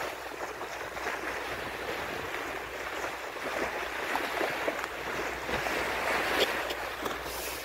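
Sea water rushing and splashing along a vessel's bow as it cuts through the sea, a steady hiss of spray that swells a little about two-thirds of the way in.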